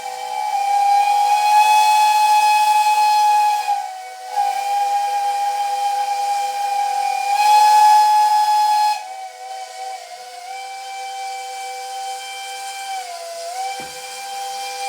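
Train whistle sounding a sustained chord of several notes with a hiss over it. It comes in two long, loud blasts over the first nine seconds, then holds on more softly with slight dips in pitch.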